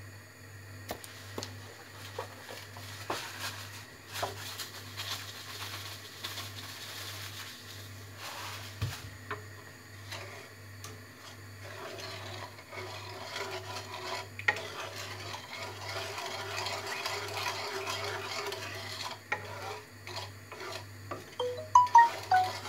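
A wooden spatula stirring and scraping in a metal pan, with a cluster of sharp, ringing knocks against the pan near the end.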